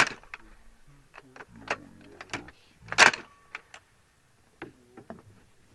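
Two loud, sharp clunks or bangs, one at the start and one about three seconds in, with lighter metallic clicks and clacks around them and a faint voice between.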